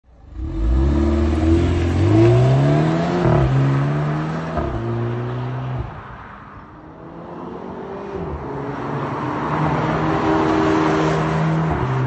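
BMW 330i G20's turbocharged 2.0-litre four-cylinder with M Sport exhaust accelerating hard, its pitch rising and then dropping at an upshift about three seconds in. It holds, fades away about halfway through, then builds again and holds steady under load.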